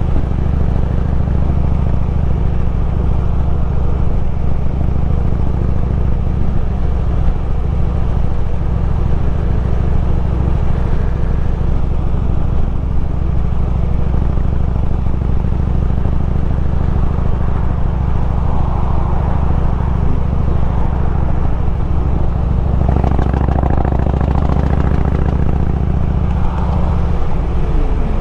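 Harley-Davidson Road King's V-twin engine running steadily under way, heard from the rider's seat with road noise around it; the engine note changes near the end.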